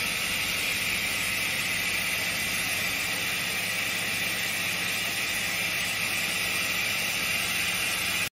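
Hanwha XD 38 II CNC sliding headstock (Swiss-type) lathe running: a steady hiss over a low hum, even throughout, cutting off suddenly near the end.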